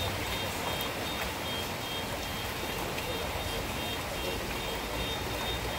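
Steady rain falling on a flooded street and parked cars, with a faint high electronic beeping that repeats throughout.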